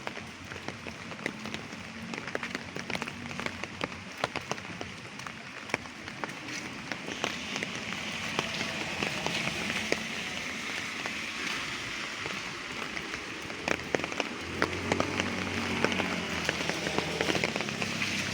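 Light rain falling, a steady patter with many sharp individual drops ticking close by. It grows a little louder about seven seconds in.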